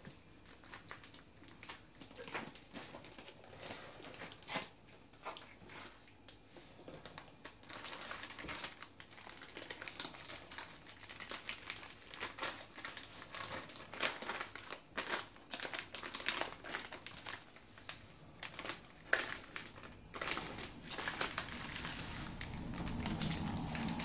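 Plastic zip bag crinkling and rustling as it is opened and peeled off a slab of croissant dough, in irregular crackly bursts that grow busier in the second half.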